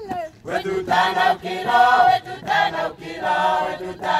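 A group of voices singing a chant together in short, repeated phrases with brief breaks between them.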